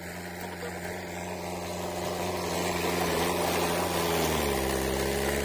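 Mahindra Novo 605 DI-i tractor's four-cylinder diesel engine running steadily under load while pulling a 7-foot Landforce rotavator through soil. It grows louder as it approaches, and about four seconds in the engine note dips lower and holds there.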